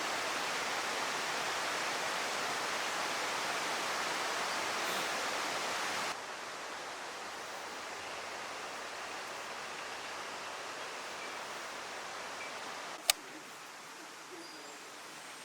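Steady, even hiss of outdoor ambience with no distinct sounds in it. It steps down in level about six seconds in, and there is a single sharp click about thirteen seconds in.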